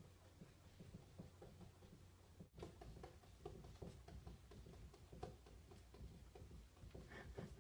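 Faint, irregular soft taps of a cat's paws patting at a mirror, over a low steady room hum.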